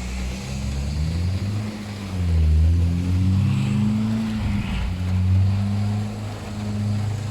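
An engine running, its pitch rising and falling about two seconds in, then settling to a steady run.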